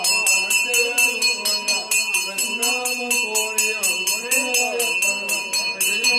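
A metal hand bell rung rapidly and steadily, about four or five strokes a second, each stroke ringing on. Under it, a voice sings or chants a wavering, gliding melody.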